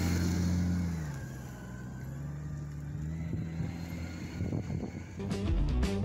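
Honda Gold Wing touring motorcycle engine running at low speed through a slow tight turn, dropping in pitch and fading about a second in as the bike moves away. Music with a beat comes in near the end.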